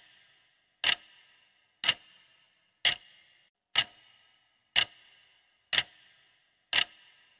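Ticking-clock sound effect counting down a quiz timer: one sharp tick each second, seven in all, each leaving a brief ring.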